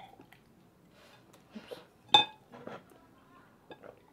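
A sharp, ringing clink of glass or dishware on the table about two seconds in, with a smaller clink at the start and light handling sounds between.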